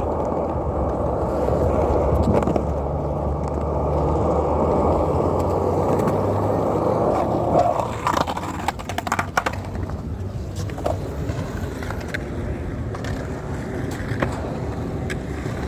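Skateboard wheels rolling over concrete in a steady rumble for about the first eight seconds, then several sharp clacks of the board, after which the rolling goes quieter.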